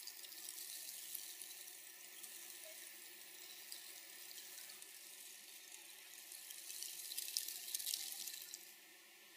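Wind rustling dry flower petals, a faint crackly hiss that swells a little past the middle and drops away suddenly near the end.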